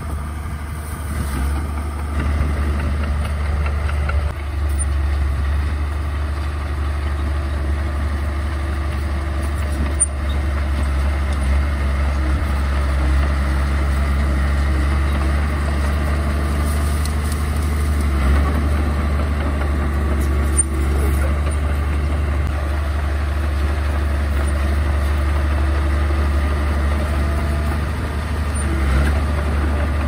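Komatsu D31A bulldozer's diesel engine running steadily with a deep hum, with two brief knocks about a third and two-thirds of the way through.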